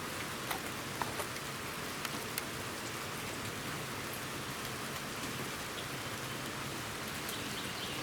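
Steady rain falling, an even hiss with scattered individual drops ticking sharply, a few close together in the first couple of seconds.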